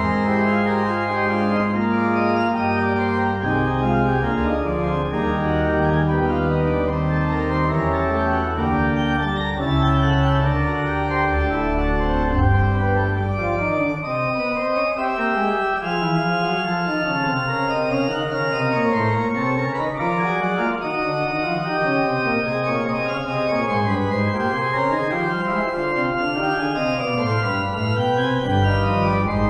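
Organ playing. Held chords sound over a deep pedal bass; about halfway through the bass drops out and quicker lines wind up and down in the middle range, and the deep bass comes back at the very end.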